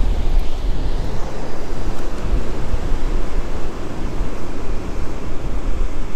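Wind buffeting the microphone in a steady, heavy rumble over the wash of breaking ocean surf.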